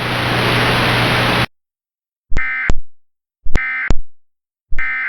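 Hissing static with a low hum, cutting off suddenly about a second and a half in. Then come three short, harsh digital data bursts about a second apart: the SAME end-of-message (EOM) tones that close an Emergency Alert System broadcast.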